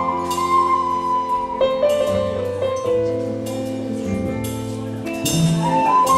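Live band playing an instrumental passage: a flute holds long melody notes over sustained chords, with sharp rhythmic strikes from the accompaniment. The flute drops out for a few seconds in the middle and comes back in near the end.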